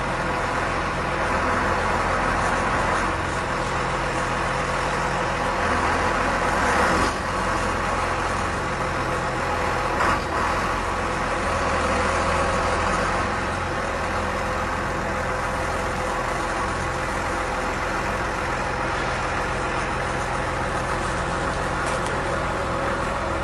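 A TYM tractor's diesel engine running steadily at working speed, driving a PTO stump grinder, with small surges in the sound now and then.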